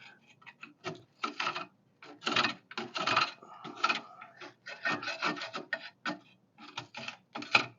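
Irregular, uneven scraping strokes: dried mud of dead dirt dauber (mud wasp) nests being scraped and picked out with a tool.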